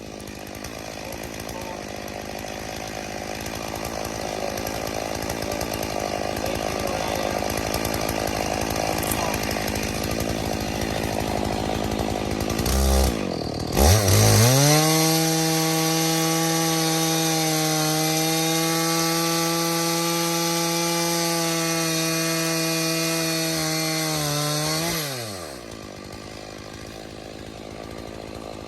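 Stihl MS461 two-stroke chainsaw with a vertical mini-mill, cutting through a log under load. About 13 seconds in it comes free of the wood and runs at a steady, high-pitched full throttle for about ten seconds. Near the end the pitch falls quickly as the engine drops back to a quieter idle.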